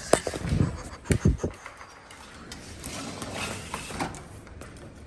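A few sharp mechanical clicks and knocks in the first second and a half, then a softer rustling noise.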